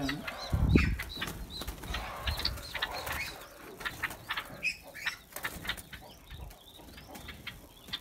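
White-eared bulbuls fluttering in a small aviary: repeated quick wing flaps and scrabbling landings against the block wall and roof, with a few short high chirps. A dull thump under a second in is the loudest sound.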